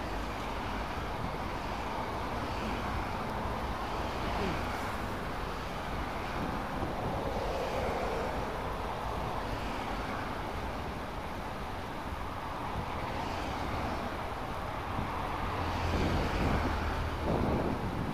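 Outdoor stream-side ambience: a steady rush of flowing water and wind on the microphone, with a distant low rumble of traffic that swells near the end.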